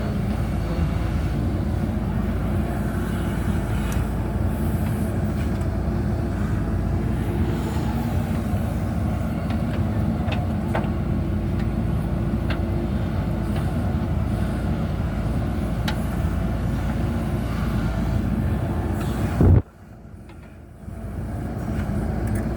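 JCB backhoe loader's diesel engine running steadily, with a few faint clanks. Near the end there is a sharp bang, then the sound drops away for about two seconds before the engine noise comes back.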